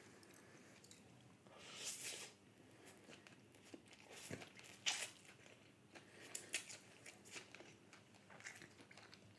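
Faint chewing and wet mouth clicks from eating a mouthful of chilli garlic noodles, with a longer soft slurping hiss about two seconds in and scattered small smacks after.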